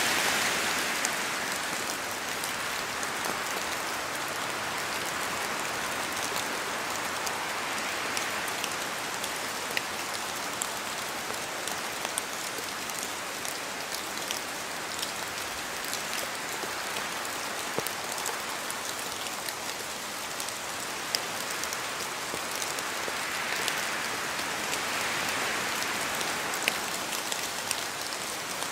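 Steady rain falling in a forest, with many separate drops ticking as they fall from the trees. The rain noise swells and eases a few times, as wind moves through the trees.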